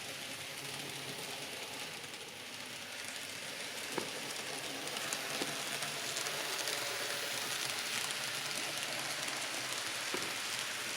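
N-scale model locomotive running on its track: a steady faint whir and hiss that grows slightly louder after a few seconds, with a few light clicks from the wheels on the rails.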